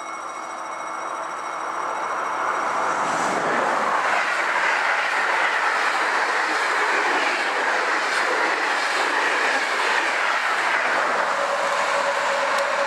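Electric-hauled passenger train passing close at speed: a steady rush of wheel and rail noise that builds over the first few seconds and then holds loud.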